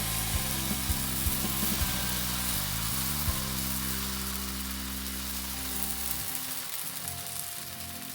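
Spinach-banana-oat pancake batter sizzling in a hot buttered pan, a steady frying hiss that starts abruptly.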